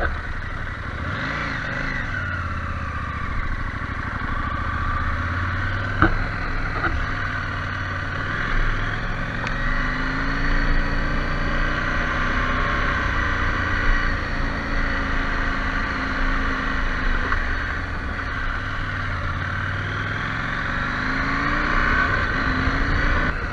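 KTM 790 Adventure's parallel-twin engine running while the bike is ridden, its pitch rising and falling several times with the throttle. There is a sharp click about six seconds in.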